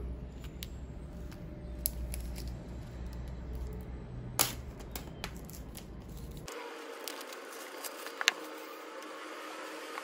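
Hands peeling the paper pull-tab seal off a MacBook Air box and handling the cardboard box, with scattered light clicks and taps and a sharper tap about four and a half seconds in. A low hum underneath cuts off abruptly about six and a half seconds in.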